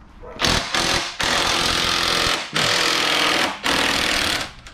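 Cordless impact wrench hammering on a bolt in about five bursts: a short one, then longer runs of about a second each with brief pauses between. It is undoing the nylon-insert lock nuts that hold a truck's rear number-plate bracket.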